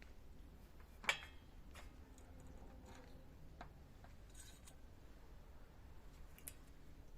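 Scattered light clicks and taps of handling or tool work, with one sharper click about a second in, over a faint low hum.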